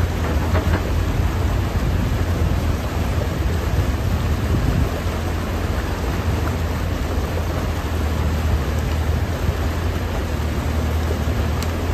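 Water rushing white through a breach in a beaver dam, with a mini excavator's diesel engine running steadily underneath as the machine works the dam.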